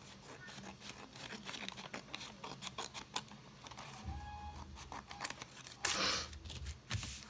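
Scissors snipping repeatedly through paper, trimming the overhanging strip along the edge of a paper bag, followed about six seconds in by a loud, brief rustle of a paper sheet being laid down.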